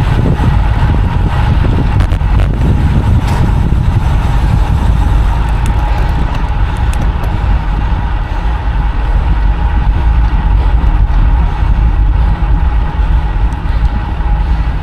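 Steady rush of wind and road noise on a camera carried on a road bike riding at speed, heavy and low throughout, with a faint steady hum above it.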